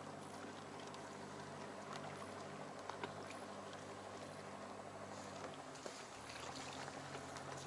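Faint low hum of a boat engine, dropping a little in pitch about six seconds in, with a few faint clicks.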